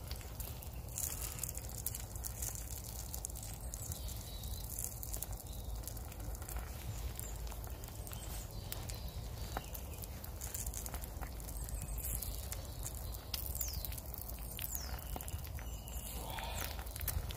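Eggs frying in a pan on campfire embers: a steady sizzle with frequent small crackles and pops. Birds chirp faintly a few times in the second half.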